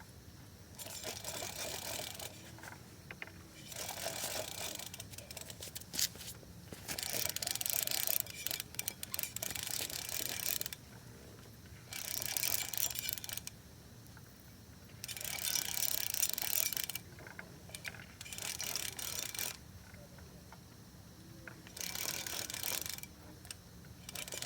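Fishing reel being cranked in repeated bursts, a clicking, whirring gear sound lasting one to four seconds at a time, with short pauses between, about eight times.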